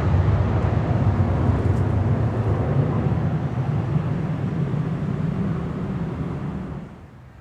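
Jet noise from a USAF F-16CM Block 50 Fighting Falcon's single General Electric F110 turbofan: a loud rush with a deep rumble that slowly fades, then drops off sharply near the end.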